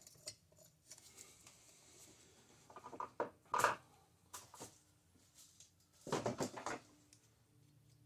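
Light metallic clinks and knocks as a cylinder is wiggled down over the piston and rings onto the studs of a Honda Rancher 350 engine: a cluster about three seconds in and a short rattling run around six seconds.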